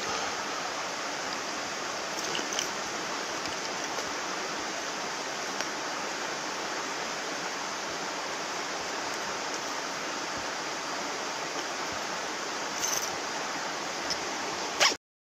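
Steady rush of a shallow, rocky stream running close by, with a few light clicks scattered through it and a sharper click just before the sound cuts off abruptly near the end.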